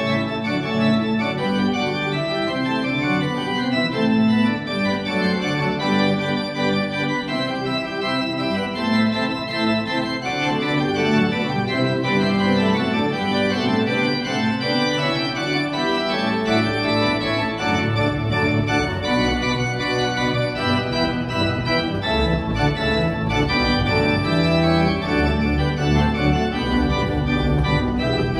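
Pipe organ playing a piece with many sustained notes sounding together, with deep pedal bass notes coming in strongly in the second half.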